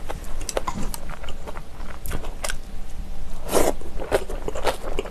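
Close-miked chewing of a mouthful of instant black bean noodles (Chapagetti): a run of short wet mouth smacks and clicks, with one louder, longer wet noise about three and a half seconds in.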